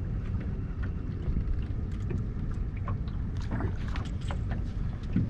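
Steady low rumble aboard a small fishing boat on calm water, with faint scattered clicks over it as the angler fights a hooked fish on a bent rod.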